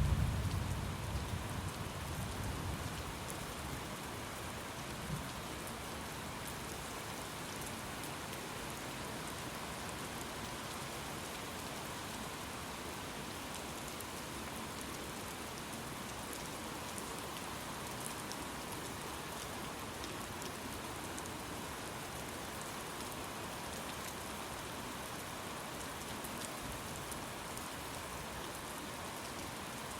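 Steady rain falling, with a low rumble of thunder at the very start that fades away over the first few seconds.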